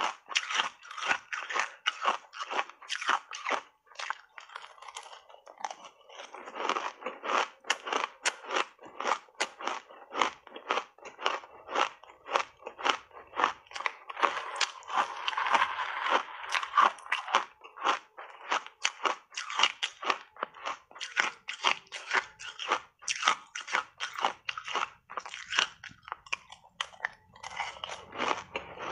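Ice chunks coated in matcha tea powder being bitten and chewed: a steady run of crisp crunches, several a second.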